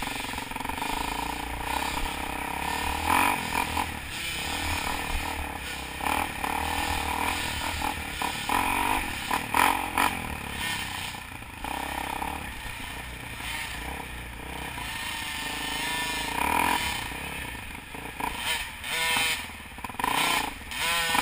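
Dirt bike engine running at speed, its pitch rising and falling as the throttle is opened and closed.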